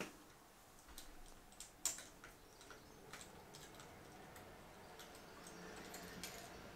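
Faint, irregular light metallic clicks and taps of a spark-plug socket and extension bar as the secondary spark plug is turned out of a motorcycle cylinder head. The clearest click comes about two seconds in.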